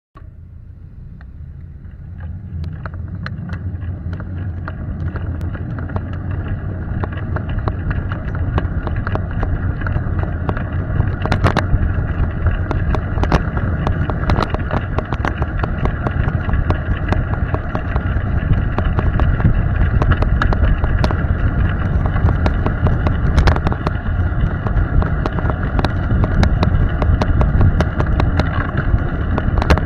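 Wind rushing over a bicycle-mounted camera's microphone along with road rumble, growing louder over the first several seconds as the bike picks up speed and then holding steady. Frequent sharp clicks and knocks are scattered through it.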